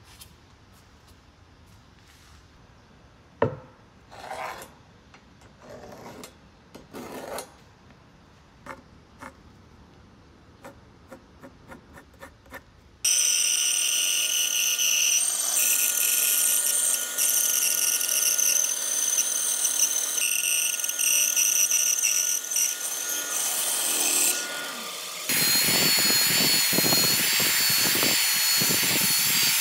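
Scattered light knocks and clicks of wood being handled, then a band saw cutting through a walnut slab with a steady whine from about a third of the way in. Near the end the saw stops and a handheld power sander with a disc pad starts, sanding the face of a round walnut seat with a rougher grinding sound.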